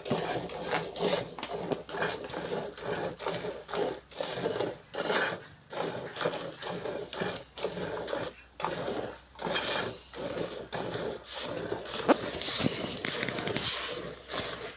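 Desi cow being milked by hand: rhythmic squirts of milk hitting a pail, about two to three a second.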